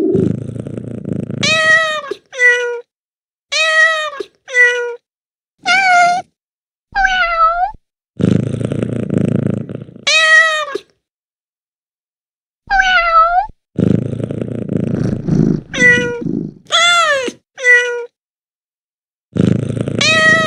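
Domestic cat meows and purring from Google Search's cat easter egg sound effects: about a dozen short rising-and-falling meows, some in quick pairs, with spells of purring between them and a few brief silent pauses.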